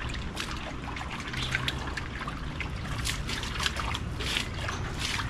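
Water trickling and splashing in irregular little spurts.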